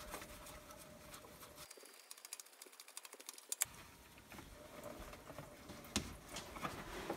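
Faint, scattered light clicks and taps as the loosened oil filter is spun off and handled by hand.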